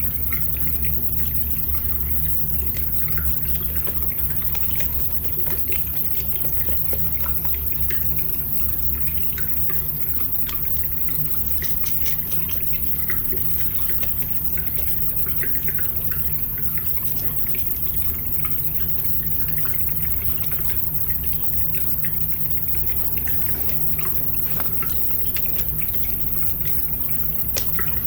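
Small scattered clicks and taps of plastic toy-car parts and screws being handled and screwed together, over a steady low hum.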